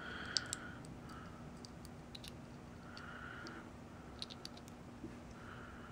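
Faint, scattered light clicks and rustles of fingers handling a small white plastic knob and a cut piece of plastic drinking straw, working the straw shim into the knob's shaft hole.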